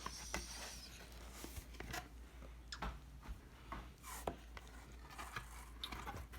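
Faint rustling with scattered light clicks and taps, like something being handled at close range.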